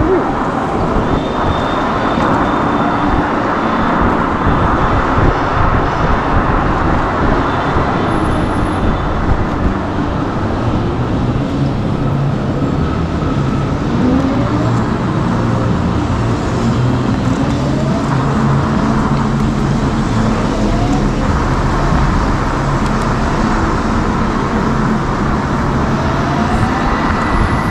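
Steady road and traffic noise from a ride on city streets, with several short rising whines scattered through it and a low hum through the middle stretch.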